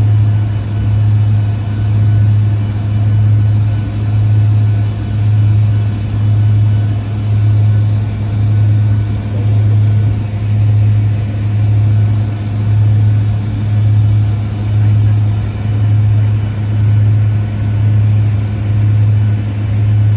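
Steady low drone of an aircraft's engines heard from inside the cabin, swelling and fading evenly about once a second.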